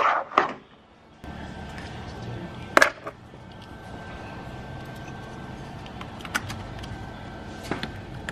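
Sharp plastic clicks as a green multi-fuse block is pulled from and pressed into a Nissan 350Z's under-hood fuse box, the loudest right at the start and another about three seconds in, with a faint steady hum behind.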